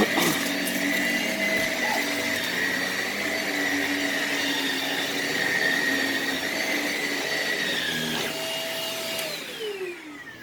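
Shark Navigator upright vacuum cleaner running on carpet, a steady motor whine, with a knock right at the start. About nine seconds in it is switched off and the motor winds down, its pitch falling.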